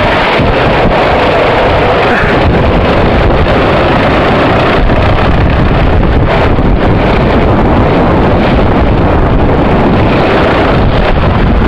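Go-kart at speed heard from on board: its engine running under a loud, steady rush of wind over the camera's microphone.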